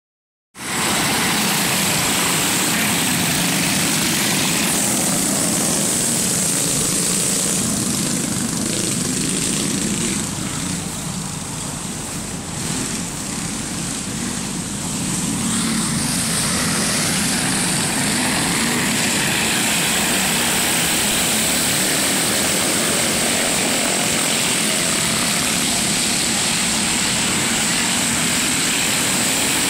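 Several go-kart engines buzzing steadily as the karts race around a dirt oval. The sound drops a little for a few seconds midway, then comes back up.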